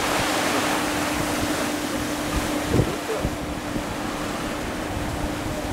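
Wind buffeting the microphone and waves rushing along a sailing boat's hull as it moves through choppy sea, with a steady low hum underneath and a stronger gust about three seconds in.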